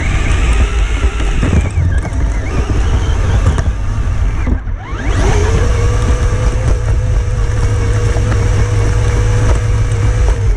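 On-board sound of a radio-controlled rock crawler driving through undergrowth: its electric motor and gears whine over a heavy low rumble, rising in pitch about halfway through and then holding one steady note to the end.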